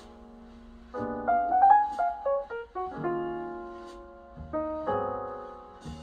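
Piano music playing through a Yamaha AX-592 stereo amplifier and a pair of small speakers. Chords ring and fade, with a quick run of notes about a second in, the loudest moment.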